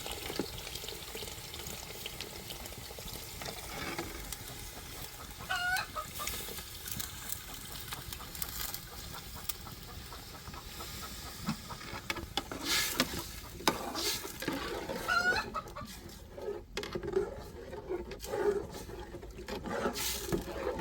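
Chickens clucking and giving short calls over a steady hiss. The hiss thins out about two-thirds of the way through, and a few sharp knocks sound near the end.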